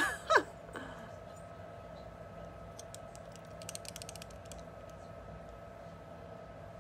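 A quick run of faint clicks and taps about halfway through, over a steady faint hum.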